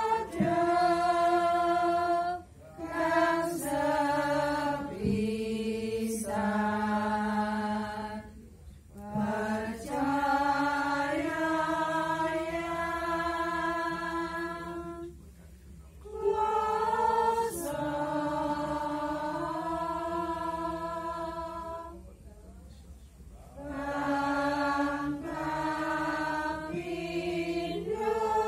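Slow Hindu devotional chanting: long held sung notes that step gently up and down in pitch, in phrases of several seconds with short breaks for breath between them.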